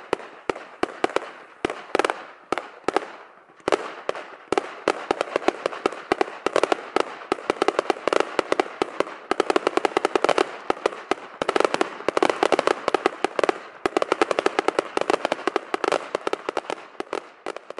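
Fireworks display of aerial bursts going off in rapid succession. The bangs come in separate volleys for the first few seconds, then run together into a dense, almost continuous barrage from about four seconds in until near the end.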